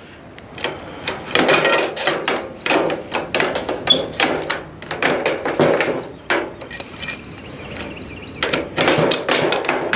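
Irregular knocks, clunks and scrapes of scrap being handled and shifted in a curbside junk pile, with a quieter stretch about two-thirds of the way through.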